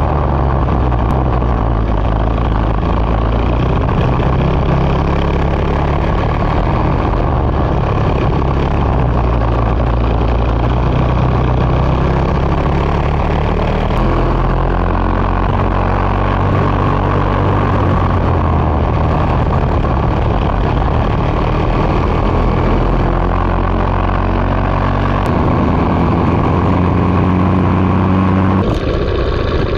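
Racing kart engine running hard on track, its pitch stepping up and down as the driver accelerates and lifts through the corners. The sound changes abruptly about a second before the end.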